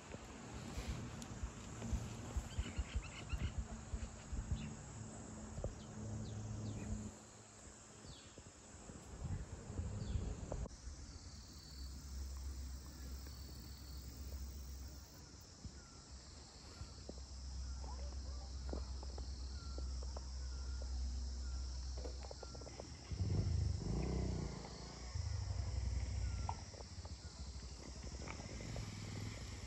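Rural outdoor ambience dominated by insects buzzing in a steady high drone, over a low rumble and scattered faint rustles and clicks.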